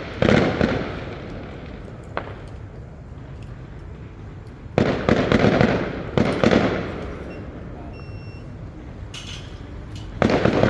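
Fireworks going off in clusters of crackling bangs, one burst near the start, two around the middle and another near the end, with a low rumble between the volleys.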